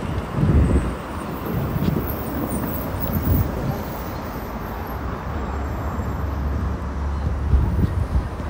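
City street ambience heard while walking, with vehicle engine and traffic noise; a steady low hum sets in about halfway through.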